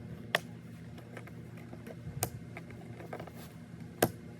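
Twist ties being snipped with a cutting tool: three sharp snips, the last the loudest near the end, with smaller clicks and handling noise between them.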